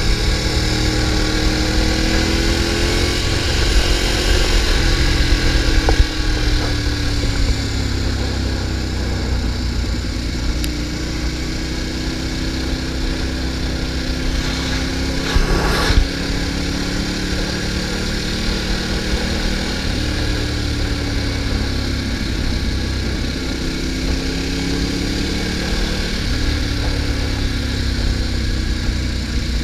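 Motorcycle engine lapping a race track, heard from a camera on the bike: its pitch climbs and drops again and again as the rider accelerates, shifts and slows, over a steady rush of wind. A brief loud whoosh comes about halfway through.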